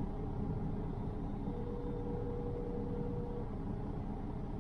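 A phone on hold plays one ring of a North American ringback tone, a single steady tone about two seconds long in the middle, over a steady low hum. The ringing means the hold line is still unanswered.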